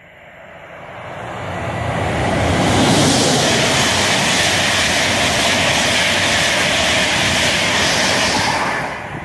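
LNER InterCity 225 express, a Class 91 electric locomotive with Mark 4 coaches and driving van trailer, passing through the station at speed without stopping. Its rushing noise of wheels on rail and moving air builds over the first couple of seconds, holds steady, and falls away near the end.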